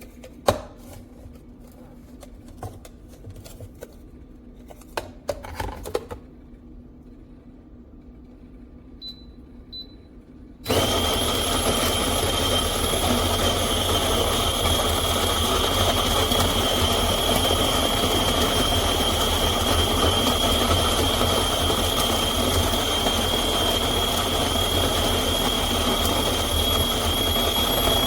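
Chefman electric burr coffee grinder: a few clicks and knocks of handling, two short beeps, then about a third of the way in the motor starts suddenly and runs steadily with a constant high whine over a grinding rumble.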